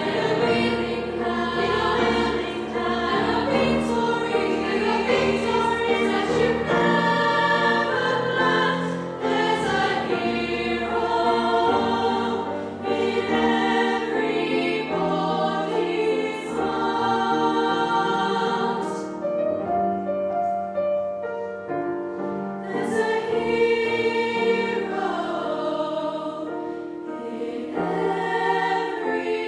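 Youth choir singing in parts with piano accompaniment, with a softer passage about two-thirds of the way through.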